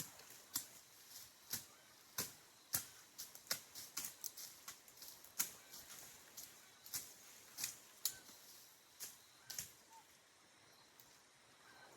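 Irregular sharp strikes from a hand tool chopping or cutting vegetation, about one or two a second. They stop about ten seconds in.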